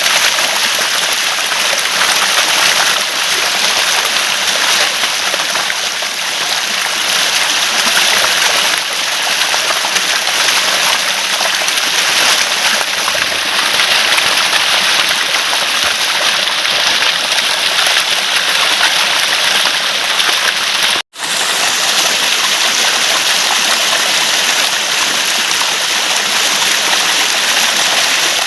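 Flowing water gurgling and rushing, a steady dense splashing that drops out for an instant about three-quarters of the way through.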